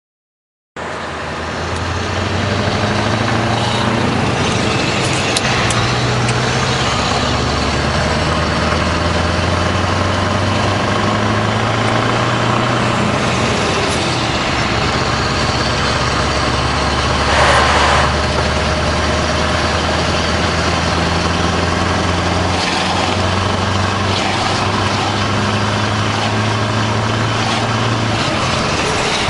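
Scania 144 460's 14-litre V8 diesel running through a straight, unsilenced exhaust, heard from inside the cab as the truck drives. The engine sound starts abruptly about a second in and runs loud and steady, its pitch shifting a few times. A brief louder rush of noise comes about two-thirds through.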